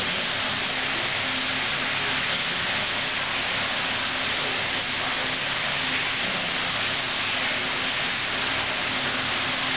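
Steady rushing hiss of running water circulating through a large aquarium tank, with a faint low hum under it.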